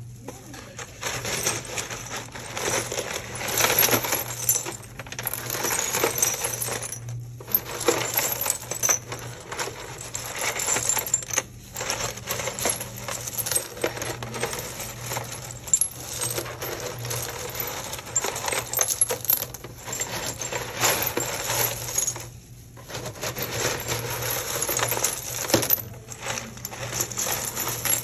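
Broken ceramic tile and china shards clinking and rattling against each other as a gloved hand stirs and sifts through them in a plastic tub, with a few short pauses.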